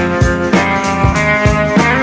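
Background music with guitar over a steady drum beat.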